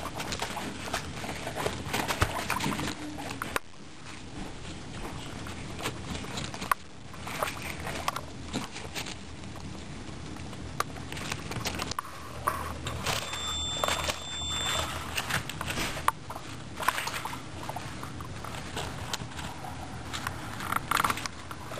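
Guinea pigs gnawing and crunching on a raw carrot, with many irregular crisp bites, and rustling of bedding as they shift about.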